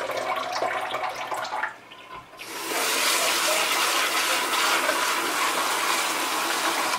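Rinse water sloshing and pouring off rice in a rice cooker's inner pot, then, about two and a half seconds in, a kitchen tap running steadily into the pot.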